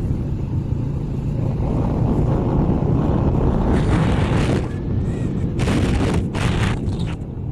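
Wind noise on the microphone of a moving vehicle over a steady low rumble of engine and road. From about halfway in, the wind comes in harsher gusts.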